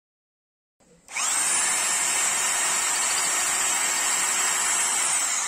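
INGCO 1500 W corded rotary hammer drill in rotary-only mode, with hammering off, boring into a rock. It spins up with a rising whine about a second in, runs steadily under load, and winds down with a falling whine at the end.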